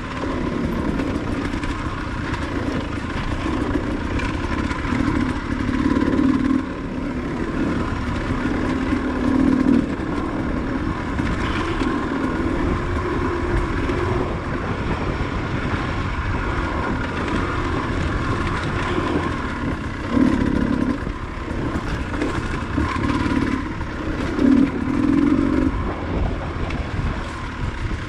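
Enduro dirt bike engine running while riding, swelling and easing with the throttle every few seconds over a steady rush of noise.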